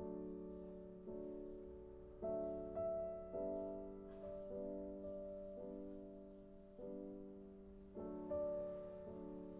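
Background piano music: slow, soft chords, each struck and left to fade, with a new chord about every second.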